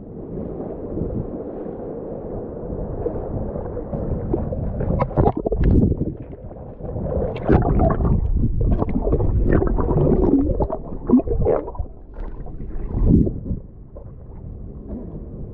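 Seawater sloshing and gurgling against a GoPro held at the waterline in the surf. The sound is muffled throughout, and there are irregular splashes and gurgles through the middle as the camera dips under the surface.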